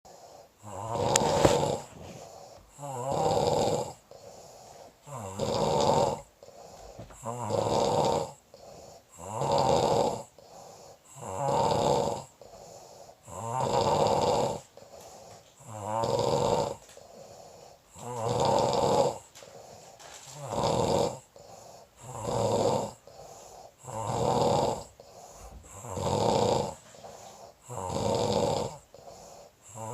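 A man snoring in deep sleep: a rough, loud snore roughly every two seconds, each followed by a much softer breath, in a steady, even rhythm.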